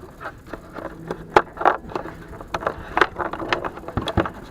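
Irregular clicks, knocks and scrapes of hard plastic being handled: a tail-light bulb socket being twisted out of the light housing and the bulb pulled from it.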